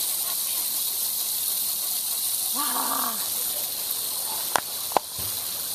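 Garden hose spray nozzle hissing steadily as a dog snaps at the jet, with one rising-and-falling whine from the dog about three seconds in. Two sharp clicks follow near the end.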